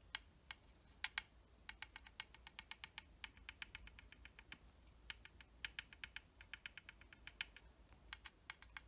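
Faint, quick light taps of a tool dabbing scuff marks onto the plastic surface of a scale model aircraft, in runs of several taps a second with short pauses.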